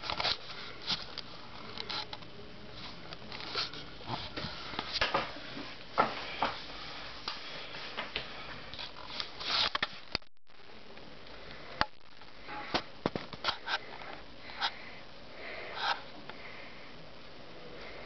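Irregular short breathy sniffing noises and small clicks close to the microphone, over a low hiss, cutting out briefly about ten seconds in.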